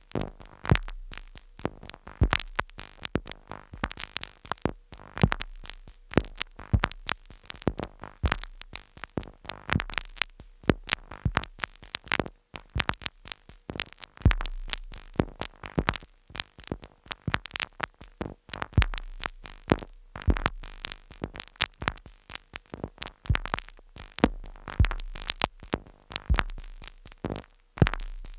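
Two Behringer Neutron analog synthesizers sequenced by a Korg SQ-10, playing a stuttering pattern of sharp glitchy clicks and noise hits with irregular deep bass thumps.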